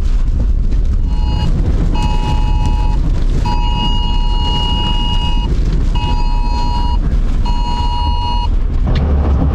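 A high-pitched beeping signal sounds five times: two short beeps, one long one of about two seconds, then two of about a second each. Under it runs the steady low rumble of a vehicle driving on a wet road, heard from inside the cab.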